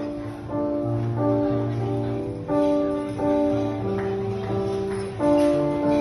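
Gentle instrumental music: held chords over a slow bass line, changing every second or so.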